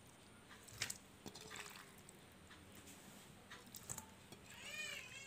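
Faint wet squishing and a few soft clicks as raw anchovies are tipped into a steel bowl and handled with bare hands over sliced shallots. Faint children's voices come in near the end.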